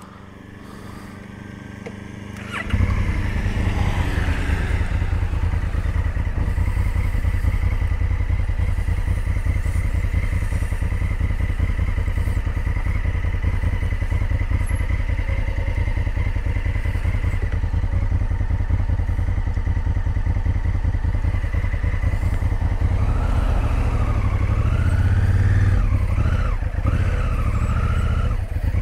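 Motorcycle engine that comes in suddenly about three seconds in, then runs with a steady low drone as the bike is ridden.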